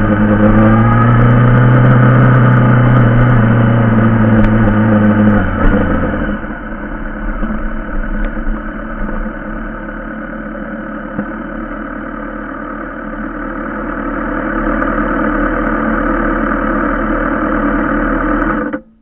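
Yamaha motorcycle engine running loudly under way, then about six seconds in it drops to a quieter, steady idle. The sound cuts off abruptly near the end.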